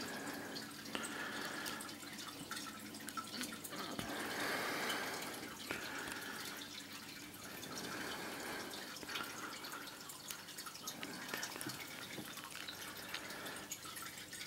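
Fish tank water trickling and dripping steadily, a little louder about four seconds in.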